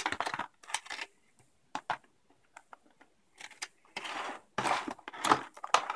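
Clear plastic blister packaging being handled: scattered light clicks and crackles, then a busier stretch of rustling from about four seconds in.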